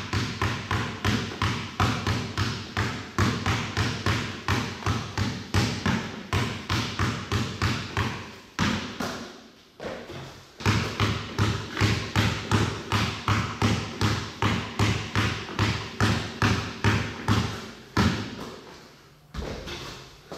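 Basketball dribbled quickly and steadily on an indoor court, about three bounces a second, each one echoing in the gym. The dribbling breaks off about nine seconds in for a layup, starts again a second later, and gives way to a few single bounces near the end.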